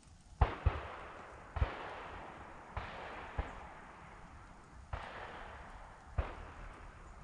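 Shotgun fire during a deer drive: seven shots at uneven intervals over about six seconds, each followed by a long rolling echo that fades away. The first shot, about half a second in, is the loudest.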